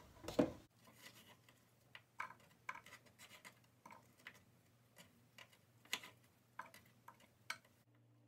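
Kitchen knife cutting apples on a cutting board: faint, irregular taps and clicks as the blade meets the board, after a louder thump near the start.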